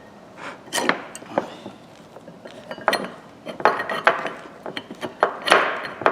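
Metal parts of a Ridgid pipe wrench being handled and fitted together: irregular clinks and knocks with a few short scrapes.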